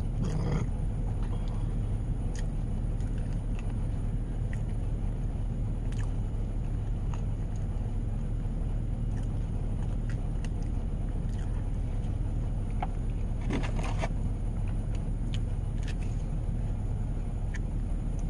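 Steady low engine hum of a parked van heard from inside its cabin, with a few faint clicks and a short rustle about thirteen and a half seconds in.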